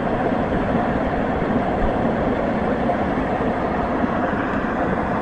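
Car wash air dryers blowing, a steady loud rushing noise with no breaks.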